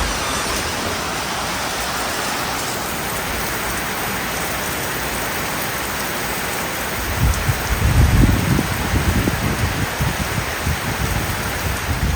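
Heavy rain falling steadily in a summer thunderstorm. About seven seconds in, a low rumble of thunder rises and rolls on to the end.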